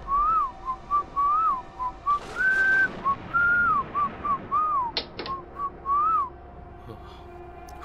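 A person whistling a slow, eerie tune: a run of short notes that rise and fall, with a few held longer, stopping about six seconds in. Two sharp clicks come about five seconds in, over a low steady hum.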